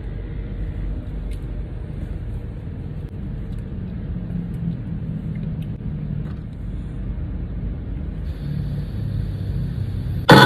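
Steady low vehicle rumble for about ten seconds, then, just before the end, a loud truck horn suddenly blasts in several steady tones.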